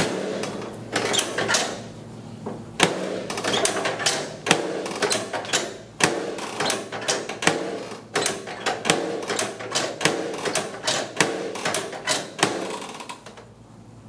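Chiropractic drop table's low-back drop section snapping down again and again under quick thrusts to the lumbar spine: a string of sharp clacks, two or three a second, with a short pause early on and stopping shortly before the end.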